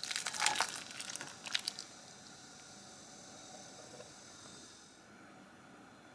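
Soupy rice cakes and sauce poured from a pan onto a ceramic plate: a wet, sliding splash with several light clinks of the pan against the plate in the first two seconds.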